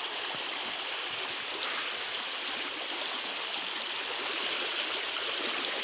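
Steady rushing of flowing stream water, an even noise with no distinct splashes.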